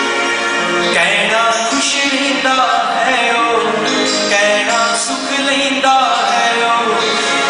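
A man singing live into a hand microphone over musical accompaniment, with long held notes that waver in pitch.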